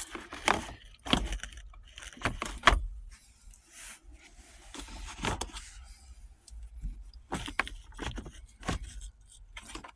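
Scattered clicks, knocks and rattles of the shifter assembly and plastic console trim being handled and fitted by hand, the loudest knock close to three seconds in.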